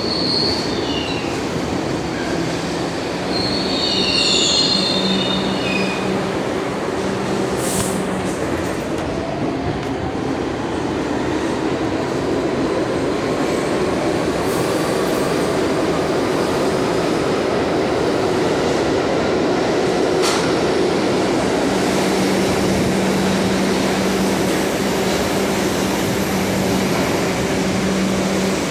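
New York City subway train running through the station, with loud steady rumble of wheels on rails, brief high wheel squeals in the first few seconds, and a motor whine that rises in pitch midway.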